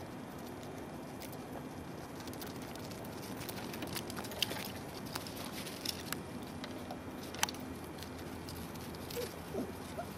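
Light pattering footsteps on packed snow, a scatter of soft irregular steps and clicks over a faint steady background hiss, with a couple of faint short squeaks near the end.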